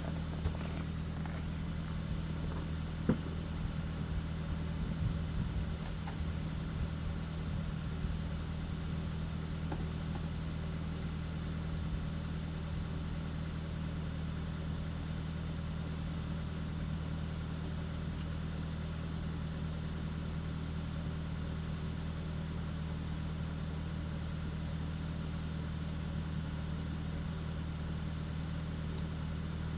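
A motor running steadily with an even low hum, with a few light clicks and knocks in the first several seconds.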